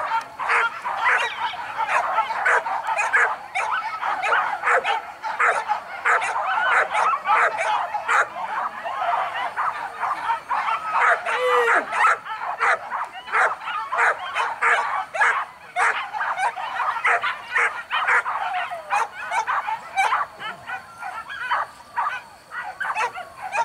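A pack of boar-hunting dogs barking and yelping rapidly and without let-up, many voices overlapping.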